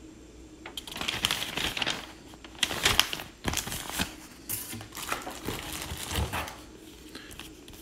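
Paper and plastic packaging rustling and crinkling in irregular bursts, with a few light knocks: a folded instruction manual being handled and set aside, then the plastic bag around a boxed item touched.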